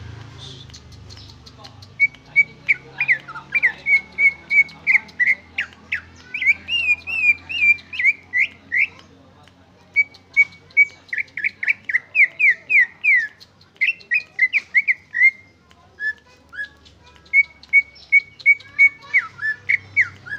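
Caged greater green leafbird (cucak ijo) singing its own song with no mimicked phrases: three long runs of rapid, clear whistled notes, steady repeated notes breaking into quick down-slurred strokes, with short pauses between the runs.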